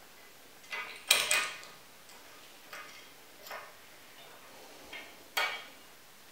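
Clicks and knocks of a spring-loaded carriage bolt with a plastic knob being fitted through a plywood stop block on a steel saw-table frame. A sharp knock about a second in and another near the end, with lighter clicks between.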